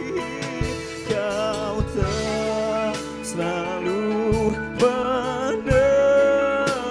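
Pop-rock band playing: a sung melody with vibrato over electric guitar, bass and drum kit, with regular drum hits.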